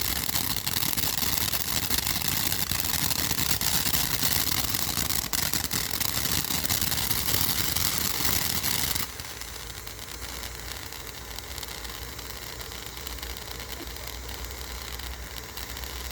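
Fountain firework spraying sparks with a loud, steady hiss that cuts off suddenly about nine seconds in, leaving quieter background noise with a low hum.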